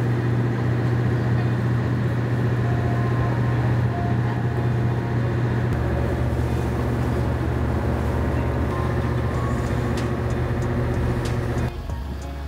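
Small wooden ferry boat's engine running steadily at cruising speed, a loud low drone heard on board, which stops abruptly near the end.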